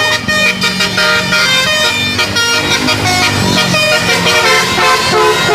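Tour bus 'telolet' multi-tone musical air horn playing a tune of changing notes, with the bus engine running underneath.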